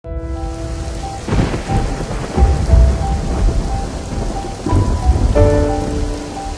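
Steady heavy rain with several rolling thunder rumbles, under soft music with held notes at the start and near the end.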